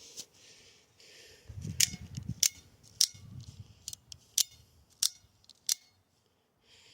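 Armed Force Tactical stiletto OTF automatic knife being fired out and retracted over and over: about six sharp snaps of the blade locking, spread over some four seconds, with handling rustle around the first few.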